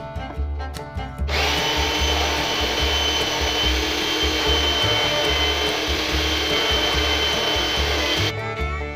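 An electric power tool runs steadily with a high whine for about seven seconds, starting about a second in and cutting off near the end. Background music with a steady beat plays underneath.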